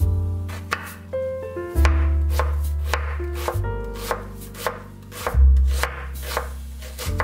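A kitchen knife chopping an onion on a wooden cutting board: a steady run of knife strikes through the onion onto the board, about two to three a second, over background music.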